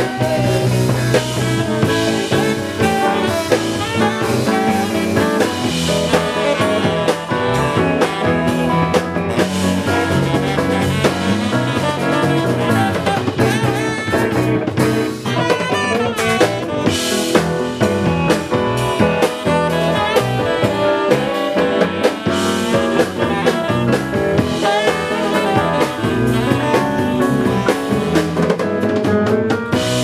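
Live band playing a song.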